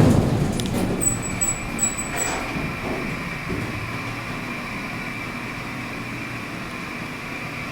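Hydraulic elevator car travelling down: a steady low hum with a thin high whine. There is a knock right at the start and a few short high beeps about a second in.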